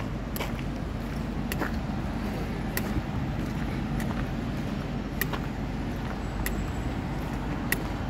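Street traffic: a steady low rumble of road vehicles, with faint sharp clicks at a regular pace, a little over a second apart.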